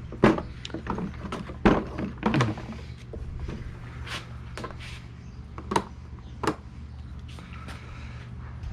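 Scattered knocks and clicks of the pressure washer, hose and wand being handled while the fault is sought, about six sharp ones spread over several seconds, over a low steady hum. The pressure washer itself is not running: it has come unplugged.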